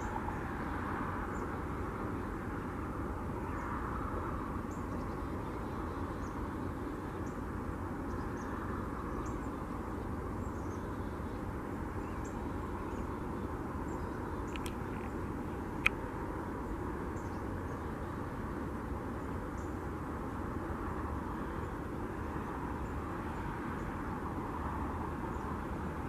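Steady background roar of distant traffic, with a few faint high chirps and a single sharp click about sixteen seconds in.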